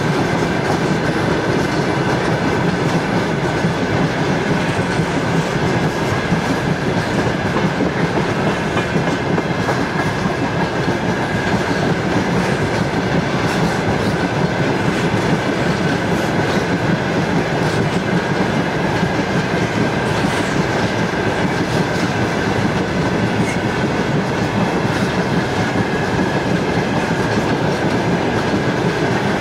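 A long string of empty railway tank cars rolling steadily past, steel wheels running on the rails, with a faint steady high tone over the noise.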